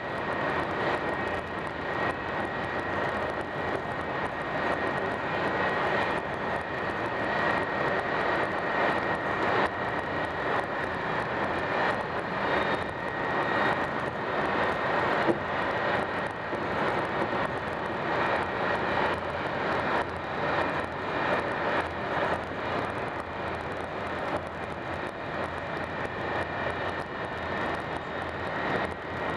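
Steady rushing cabin noise of an Italo ETR 575 (Alstom AGV) high-speed train running at speed, with a thin steady whine held throughout.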